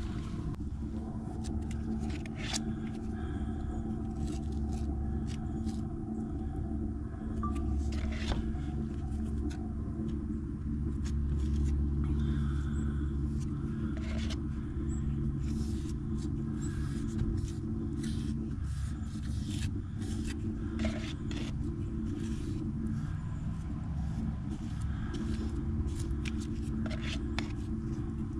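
A steady low motor hum with a rumble underneath runs throughout, joined by scattered short scrapes and clicks.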